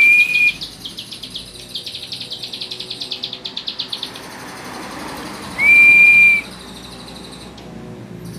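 Young ciblek sawah (prinia) singing. It gives a clear held whistle, then a rapid clicking trill of about nine clicks a second, then another held whistle about five and a half seconds in.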